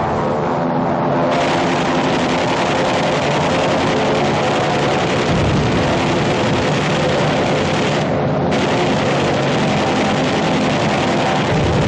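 Loud, steady drone of a piston aircraft engine, a rough, noisy roar that holds the same pitch throughout.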